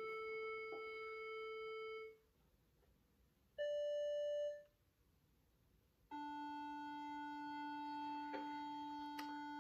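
Steady reference tuning drone on A that stops about two seconds in. After a pause, a brief higher tone sounds for about a second. Then a steady drone on D begins about six seconds in and holds.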